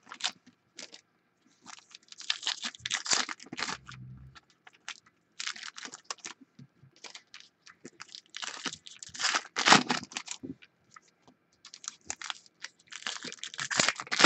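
Foil football trading-card pack wrappers being torn open and crinkled by hand, in several bursts of crackling with short pauses between, the loudest about ten seconds in.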